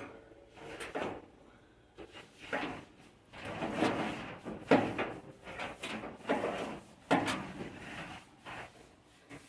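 Hands at work on parts and wiring: an irregular run of scrapes, rustles and light knocks, with a sharper knock a little under five seconds in.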